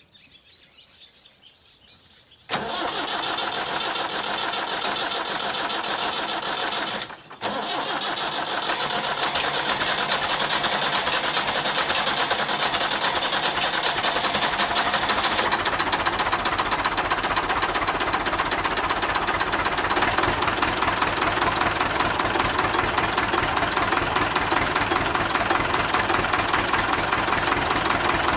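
Freshly rebuilt Perkins four-cylinder diesel engine of a Massey Ferguson 590 tractor. It comes in suddenly about two and a half seconds in, dips briefly near seven seconds, then runs steadily.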